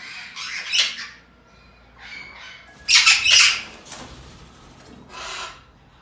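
Short-tailed parrot giving harsh, raspy squawks in three main bursts: one starting just after the beginning, the loudest around the middle, and a shorter one near the end.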